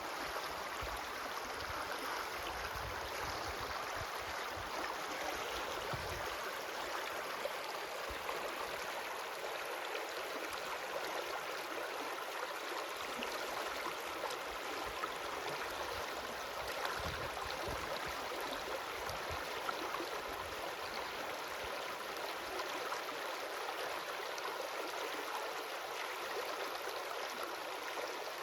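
A stream flowing steadily, with an even rush and babble of water.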